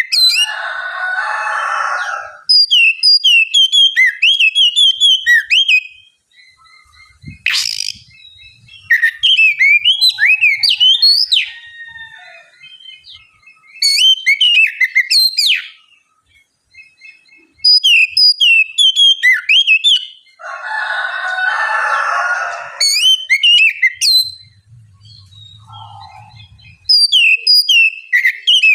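Oriental magpie-robin (kacer) singing loudly in repeated runs of sharp, quick whistled notes with short pauses between them. Harsh rasping notes come in twice, once at the start and once about two-thirds through.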